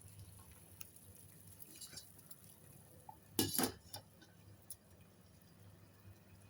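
Light clinks of metal cookware on the stove, with one louder short clatter of several quick hits about three and a half seconds in.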